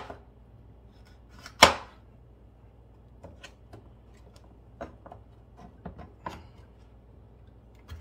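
Kitchen knife chopping an orange bell pepper on a plastic cutting board: a loud chop about a second and a half in, followed by a few softer knife taps and knocks.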